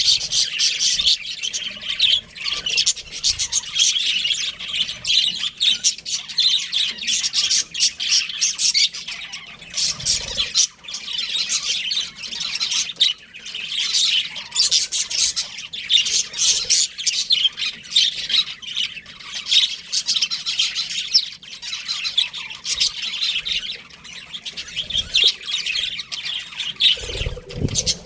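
A flock of budgerigars chirping and chattering continuously, many fast, high chirps and squawks overlapping.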